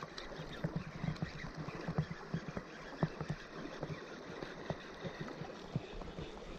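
Steady rush of stream water with many irregular small knocks and splashes.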